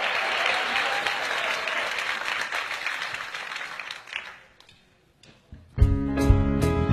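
Studio audience applauding, dying away about four and a half seconds in; about a second later the house band starts playing, loud music with sharply struck plucked-string and bass notes.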